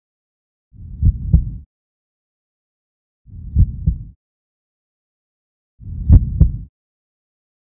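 Slow heartbeat sound effect: three deep double thumps, lub-dub, about two and a half seconds apart.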